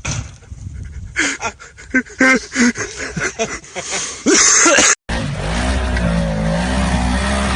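Off-road vehicle clip: irregular knocks and clatter with a few brief vocal sounds, then a loud harsh burst about four seconds in. After an abrupt cut, an ATV or UTV engine runs steadily, its pitch gently rising and falling.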